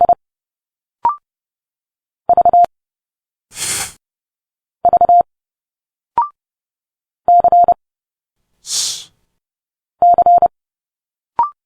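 Morse code at 30 words per minute: a pure beep near 700 Hz keyed in quick runs of short dits, a group about every two and a half seconds. Each group is followed by a short spoken speech sound for the letter, twice a hissed "sss".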